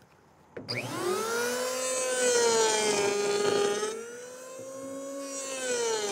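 A handheld electric power planer switches on under a second in, its motor whine rising quickly to speed, then runs at a steady high pitch while chamfering the edge of a wooden stool seat. It gets quieter about four seconds in and picks up again near the end.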